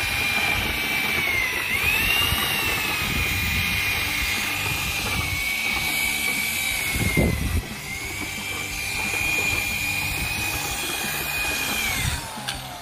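A handheld corded drill with a mixing paddle is running, churning concrete mix. Its motor gives a steady whine that sags in pitch twice as the paddle takes the load, then stops shortly before the end.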